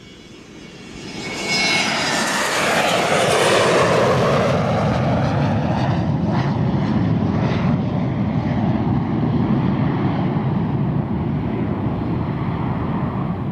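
Airplane flying past: its engine noise swells up over the first two seconds, drops in pitch as it passes, then runs on as a steady rumble.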